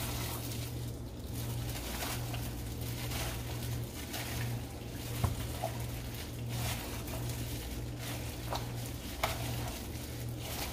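A gloved hand mixing raw, seasoned chicken pieces in a plastic bowl: irregular wet squishing and the rustle of a plastic glove, with a few sharper clicks. A steady low hum runs underneath.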